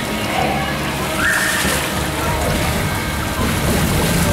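Water sloshing and splashing as children tumble inside inflatable water-walking balls on a shallow pool, over a steady background din. A brief high squeak sounds a little over a second in.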